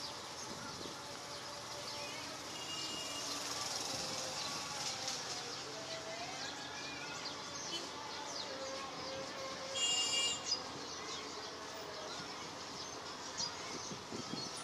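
Outdoor ambience full of small birds chirping, with a brief louder burst of chirping about ten seconds in.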